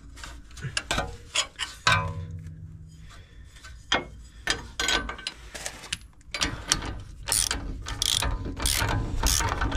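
Ratchet wrench clicking in short runs as it turns the nut on a homemade M18 threaded-rod puller, drawing a new wheel bearing into the hub.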